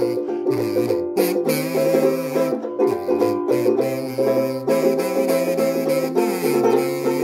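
Banjo strummed and picked in a lively rhythm, with a harmonica in a neck rack playing held chords and a melody over it: an instrumental introduction.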